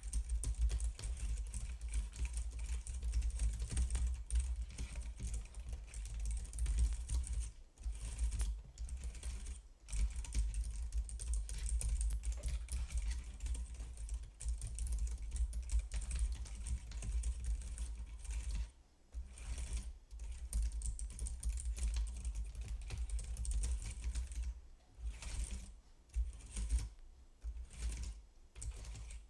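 Fast typing on a computer keyboard: a dense run of key clicks broken by short pauses, which come more often near the end.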